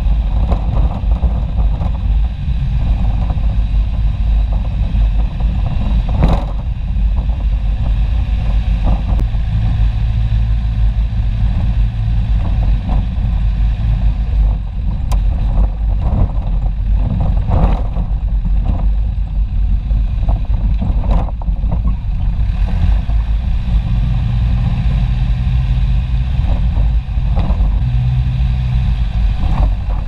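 Off-road 4x4 driving along a rough desert dirt track: a steady, heavy low rumble of engine, tyres and wind. The engine's hum comes through more clearly twice, and there are a few sharp knocks over bumps.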